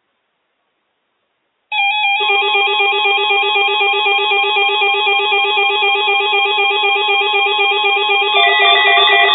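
Several NOAA weather alert radio receivers sounding their alarms together for the weekly test: loud electronic tones that step rapidly back and forth in pitch, several patterns layered at once. They start suddenly about two seconds in, and another alarm pattern joins near the end.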